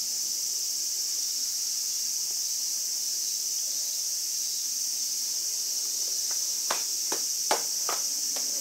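Steady, high-pitched chorus of insects droning without a break. Several short, light taps or clicks come in near the end.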